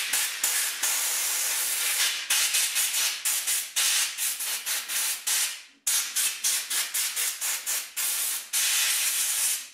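Pressurised spray hissing in quick, repeated short bursts. It stops briefly near the middle, starts again, and cuts off at the end.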